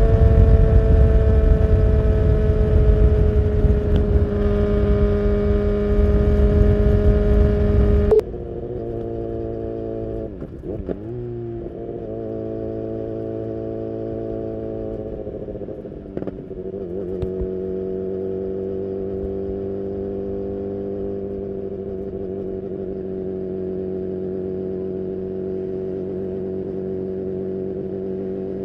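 BMW S1000R's inline-four engine through an Akrapovic full exhaust, running steadily while riding, with heavy wind rush on the microphone that drops away abruptly about eight seconds in. After that the engine note is quieter and steadier, dipping briefly twice, around ten and sixteen seconds in.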